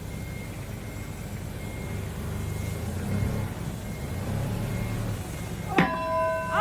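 Shenyang facing lathe running while machining a gear: a steady low machine hum with a faint, intermittent high tone. A sharp click near the end is followed by a steady tone.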